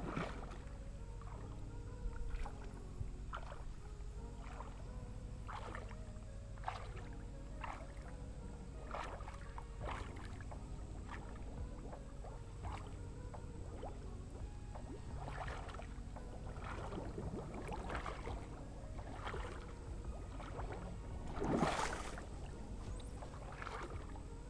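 Water sloshing and splashing in a shallow creek as someone wades and moves, with scattered small splashes every second or so and a louder one near the end, over a steady low rumble.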